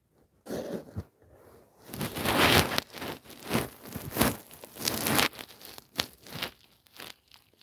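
Irregular rustling and scraping close to the microphone, crinkly and noisy, loudest about two to three seconds in and then coming in shorter bursts.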